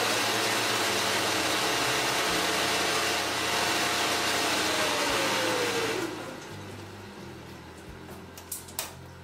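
Abrasive blast cabinet running: a loud steady hiss of the air blast with a motor's whine under it. The whine falls in pitch and the hiss cuts off about six seconds in.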